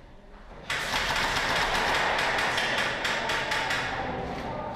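Airsoft guns firing: a dense, rapid rattle of shots and BB impacts that starts suddenly about a second in, then slowly fades.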